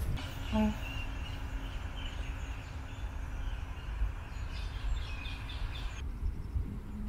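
Outdoor ambience: a few short, high bird calls over a steady low rumble. The background changes abruptly about six seconds in.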